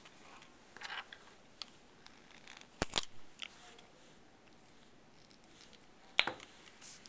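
Plastic snap cubes clicking and knocking against each other and the tabletop as a cube built from them is handled: a few short clicks, the loudest a close pair about three seconds in and another sharp one near the end.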